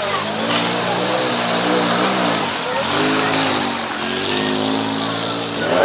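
Off-road vehicle's engine revving up and down several times under load, pitch climbing and dropping in waves, over a steady hiss.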